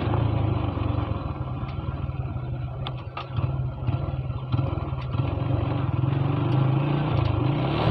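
Motorcycle engine running under way, with a few light clicks about three seconds in; near the end the engine speed drops briefly and picks up again.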